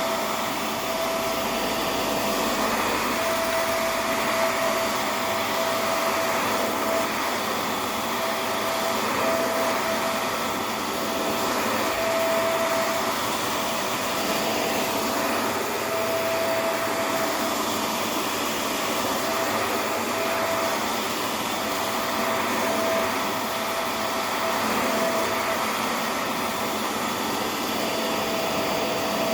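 Vacuum cleaner running steadily as it is worked over a surface: an even rushing noise with a mid-pitched motor whine that keeps dropping in and out.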